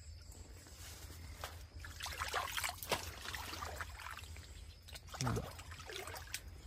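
Faint trickling and sloshing of water in a flooded furrow between cucumber beds, over a steady low rumble.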